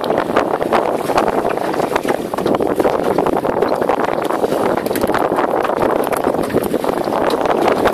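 Wind noise on the microphone over water splashing against the hull of a small open boat at sea, a steady rushing noise with many small crackles.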